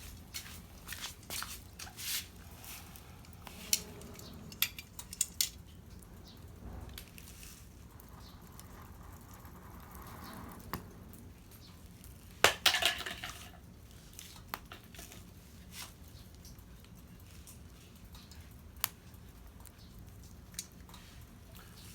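Scattered small clicks and knocks of hard objects being handled, with a louder clatter about twelve and a half seconds in.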